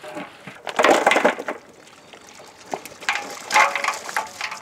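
Boiled mutton pieces and their stock being tipped out of the cooking pot to separate the meat from the stock: two bouts of clattering and splashing, one about a second in and a longer one past the middle.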